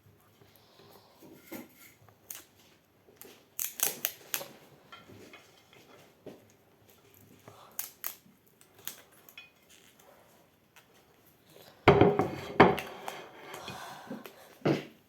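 Small plastic slime pots and lids being handled: scattered clicks, taps and light rustles, with a louder clatter of handling about 12 seconds in.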